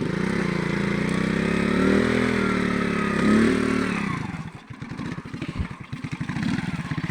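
Small single-cylinder Alfa motorcycle engine revving hard, its pitch rising and falling for about four seconds. It then drops to a slow, uneven idle with separately audible firing beats, and picks up again near the end.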